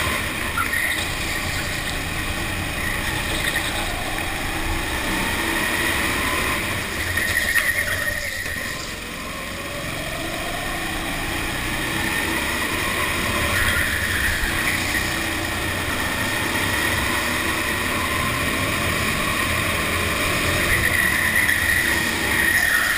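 Go-kart engine running at speed around an indoor track, its pitch climbing as the kart accelerates out of corners; the engine eases off about nine seconds in, then rises again.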